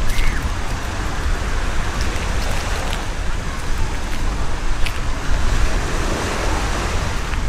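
Wind rumbling on the microphone over the steady wash of sea surf on a beach, with a few faint clicks.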